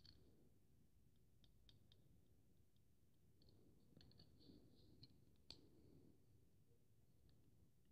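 Near silence with faint, scattered clicks and taps of fingers handling a plastic model airliner, a few of them close together a little after the middle and the sharpest about five and a half seconds in.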